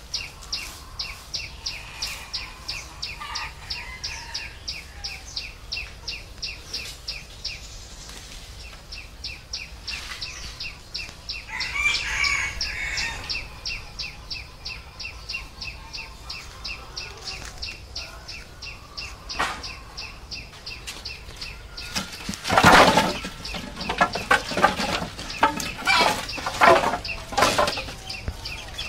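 Cut wooden poles clattering and knocking as they are dropped and stacked onto a pile, loudest in the last six seconds. Before that, a steady series of high pips runs at about three or four a second, and a chicken clucks about twelve seconds in.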